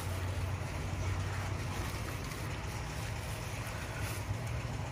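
Steady low background rumble with faint rustling of plastic bubble-wrap packaging being handled.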